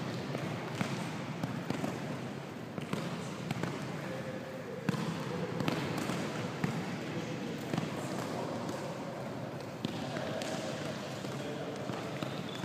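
Futsal ball being played back and forth between two players: irregular sharp knocks of the ball against the shoe and the hall floor, a dozen or so.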